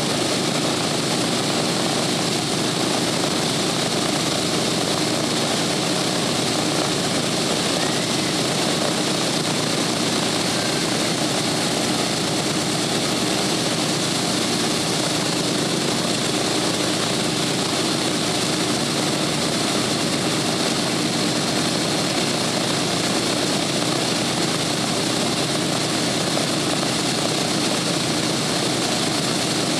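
B-17 bomber's Wright R-1820 Cyclone nine-cylinder radial engines idling steadily with propellers turning. The sound stays loud and even throughout.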